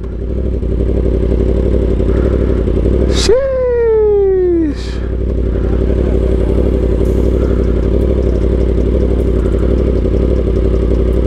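Sport motorcycle engine running steadily at low speed. About three seconds in there is a sharp throttle blip: the revs jump and then fall away over about a second and a half.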